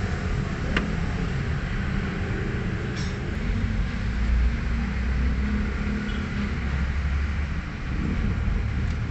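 A steady low mechanical rumble, like an engine running nearby. A sharp click comes about a second in and a light clink about three seconds in.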